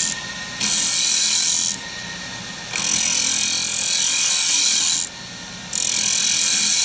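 Square cutter scraping a spinning workpiece on a wood lathe: three hissing cuts, the middle one the longest, over the steady hum of the running lathe.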